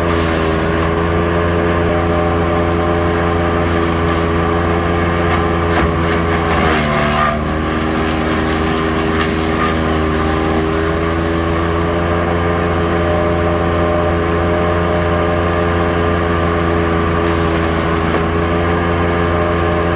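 Engine-driven wood chipper running steadily while twigs are fed through, with spells of crackling as the twigs are chipped. About seven seconds in, the engine briefly drops in pitch under the load and then recovers.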